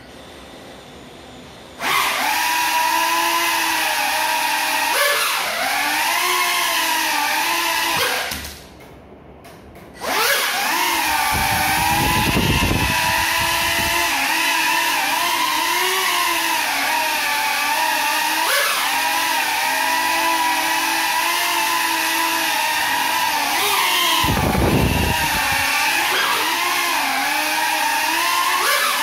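Small FPV quadcopter's electric motors whining, the pitch rising and falling with the throttle, while it flies on broken propellers. The whine starts about two seconds in, cuts out for a couple of seconds, then runs on, with two spells of low rumble partway through and near the end.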